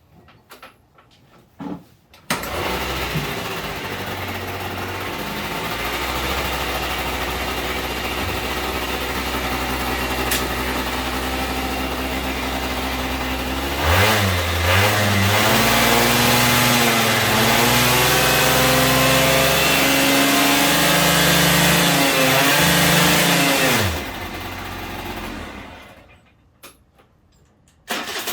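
Daelim a-FOUR 50 scooter engine starting about two seconds in and running steadily, then revved up and down for about ten seconds before dropping back to idle and shutting off near the end. The engine now starts and runs after the no-start repair.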